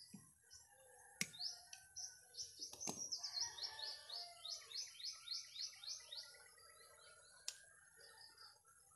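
A bird singing a run of about a dozen quick, high, falling notes in the middle, about three a second. A few sharp clicks sound before, during and after the song.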